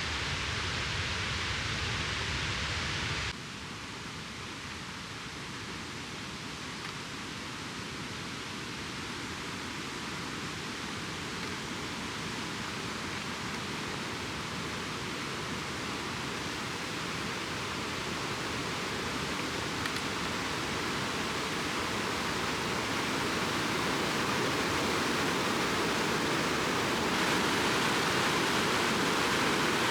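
Steady rush of a mountain stream. It changes abruptly about three seconds in, then grows gradually louder.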